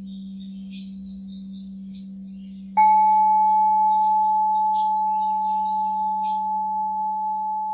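A singing bowl struck once about three seconds in, then ringing with a clear, slowly fading tone. Under it runs a steady low hum, and birds chirp throughout.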